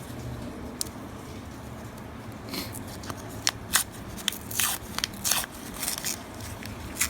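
Paper coin-roll wrapper on a roll of half dollars crinkling and tearing, quiet at first, then a run of sharp crackles from about two and a half seconds in.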